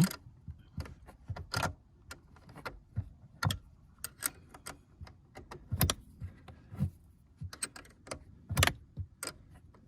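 Irregular sharp metallic clicks and clinks of a 10 mm tool working loose the nut on a car battery's negative terminal clamp.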